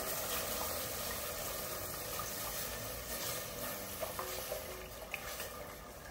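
Hot butter-and-flour roux sizzling in a stainless steel pot as chicken broth is poured in from a jug and stirred with a wooden spoon, with a steady hiss of frying and pouring liquid that slowly fades, and a few light scrapes of the spoon.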